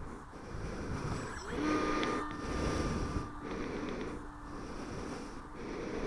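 Electric motor and propeller of a Hobbyking Funfighter T-28 foam RC plane, heard from a camera on board, under a rush of wind on the microphone that swells and dips about once a second. A steady tone sounds for about two seconds in the middle.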